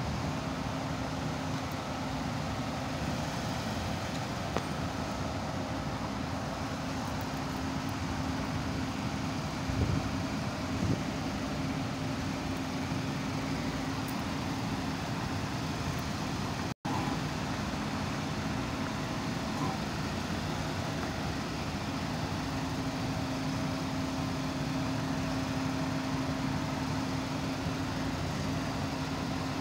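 A steady motor drone with a constant low hum, and a few light knocks about ten seconds in.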